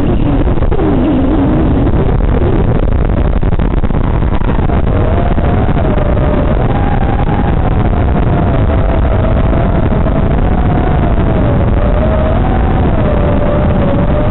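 FPV quadcopter's motors heard through the onboard camera's microphone: a loud, dense buzz. From about four seconds in, a whine runs through it, wavering up and down in pitch.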